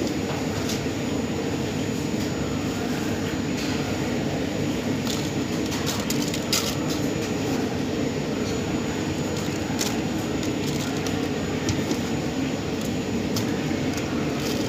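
A steady mechanical hum, with a few light clicks and crinkles of plastic takeaway food boxes being handled, the sharpest about six and a half seconds in and again near ten seconds.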